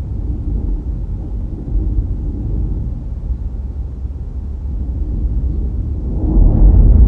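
Low rumble of a car driving, from road and wind noise, growing louder about six seconds in.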